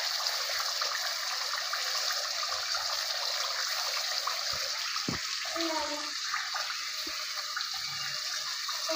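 Pot of chicken karahi cooking on a gas burner, giving a steady sizzling hiss, with a few light knocks about halfway through.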